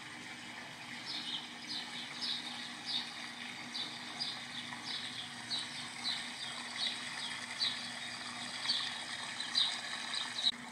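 A bird chirping over and over, short high falling chirps about one or two a second, over a low steady hum. The chirping stops suddenly near the end.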